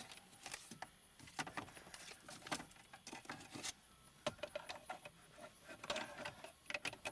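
Irregular clicks, rattles and rustling of stereo wiring and plastic connectors being tucked by hand into a car dashboard's stereo opening.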